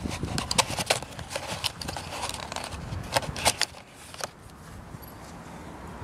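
Clicks and scrapes of a Nokia C7 phone being pulled out of its cardboard box tray and handled. The clicks come thick and sharp for about four seconds, then die down to a faint steady hiss.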